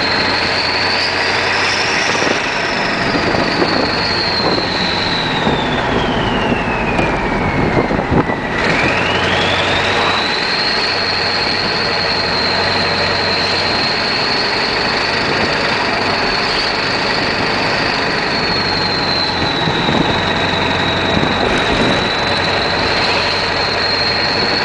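1996 Ford F-250's 7.3 Powerstroke turbo-diesel V8 running on a straight-piped exhaust, with a loud turbo whistle over the engine. The whistle rises a little, then sinks steadily in pitch for several seconds. It swoops back up quickly and holds high and steady.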